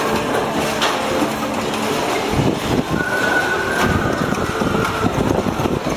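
A large mechanical carousel with ridable steel creatures running: a steady mechanical din with a high squeal lasting about a second midway.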